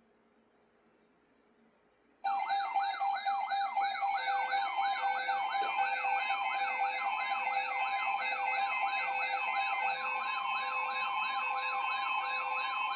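An electronic emergency-alert attention tone starts abruptly about two seconds in: a siren-like tone sweeping up in pitch about three times a second, layered with steady tones and a short beep repeating about twice a second. It is the alert signal that announces the special marine warning broadcast.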